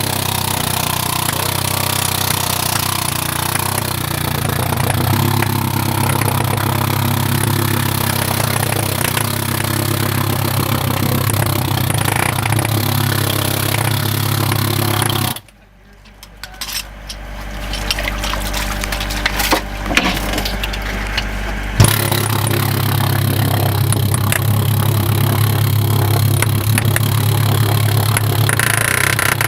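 Jackhammer running steadily against a steel sheet pile. About halfway through the hammering cuts out suddenly for about six seconds, leaving a low hum and a few knocks, then starts again at full level.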